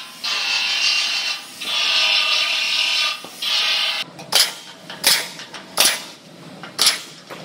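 A narrow belt sander runs in three bursts on the steel bedside's edge over the first four seconds or so. Then a hand-held punch snaps four times, about once a second, punching holes in the steel flange for plug welds.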